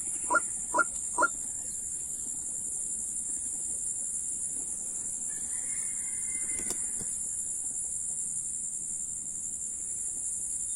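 A bird calls in a quick series of short notes, about two a second, stopping just over a second in. A steady high insect drone, like crickets, runs underneath throughout.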